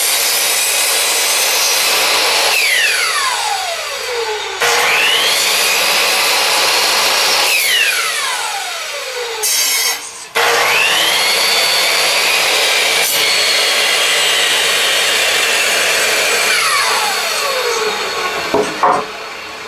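Electric compound miter saw cutting wooden boards in three runs: the motor's high whine holds through each cut, then falls away as the blade coasts down after the trigger is let go, with the saw started again about 4.5 and 10.5 seconds in. A short knock near the end.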